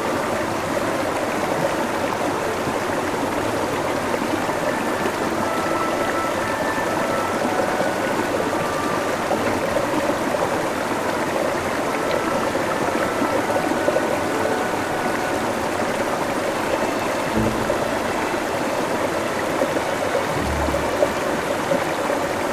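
Shallow mountain stream rushing and splashing over rocks, a steady rush of water.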